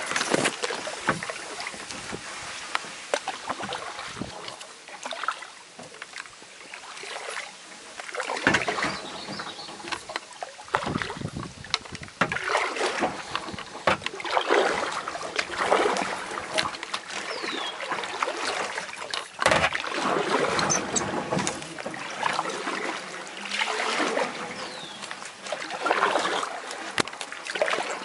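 Kayak paddle strokes dipping and splashing, swelling about every one and a half to two seconds, with reed and grass stalks brushing and scraping against the kayak and paddle in a narrow reed channel.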